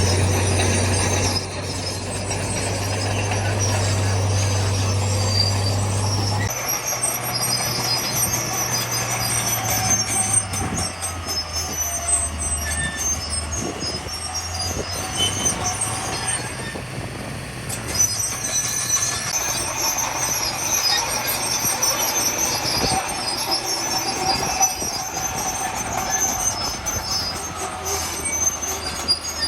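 Heavy earthmoving machinery working a stone fill: a diesel engine running with a steady low hum that drops in pitch about six seconds in, under a continuous high metallic squeal and clanking, rattling of steel and stone.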